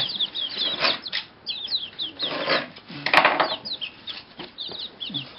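Young chicks cheeping: many short, high, falling peeps, with a sharp tap about three seconds in.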